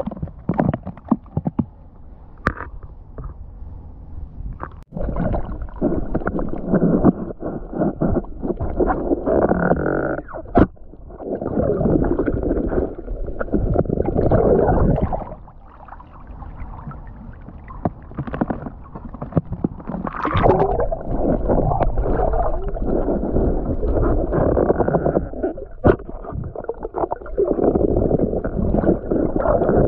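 Muffled sloshing and gurgling of seawater around the camera, coming in surges of a few seconds, with scattered sharp knocks.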